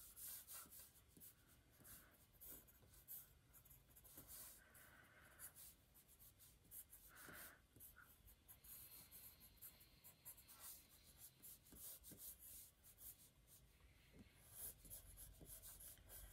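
Faint scratching of a drawing tip on paper in quick, short sketching strokes, the line deliberately broken into many brief flicks, so the sound comes as a string of small irregular scratches.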